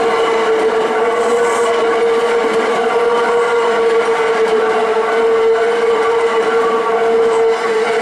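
Hankyu electric commuter train passing close on a sharp curve, its wheels running over the rails. A steady high tone is held throughout over the running noise.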